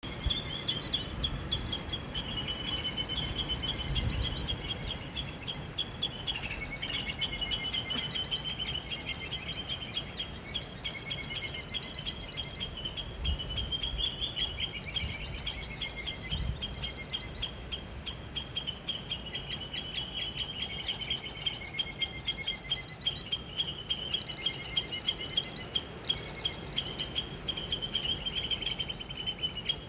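Many small birds chirping and twittering without a break, in quick repeated chirps.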